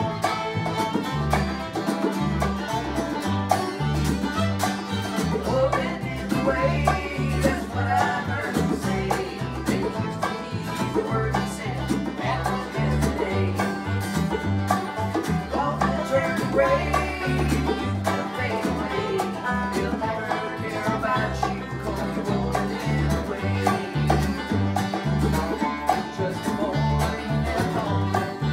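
Acoustic bluegrass band playing: banjo picking over acoustic guitar strumming and a steady upright bass line.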